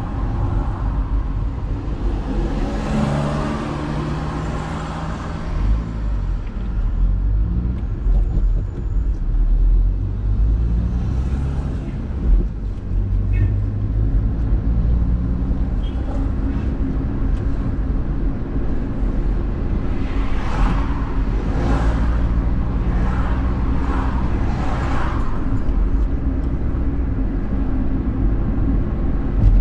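Car driving in city traffic: a steady low engine and road rumble, the engine note rising and falling as the car speeds up and slows. About twenty seconds in comes a quick run of short, sharper sounds over it.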